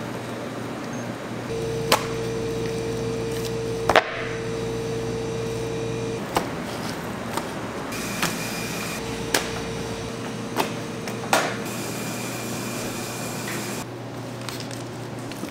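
Kitchen prep noise while raw pork spare ribs are trimmed on a cutting board: scattered sharp knocks and clicks from the knife and handling, over a steady machine hum with a faint tone that comes and goes.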